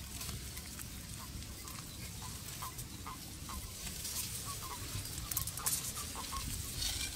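Toads calling in shallow reedy water: short, clipped notes repeating two or three times a second over a low wind rumble, with a few brief rustles about four and five and a half seconds in.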